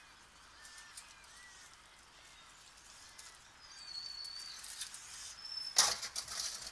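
Faint outdoor background with birds calling: a few short chirps, then two high, steady whistled notes in the second half. A sudden loud, short burst of noise comes near the end.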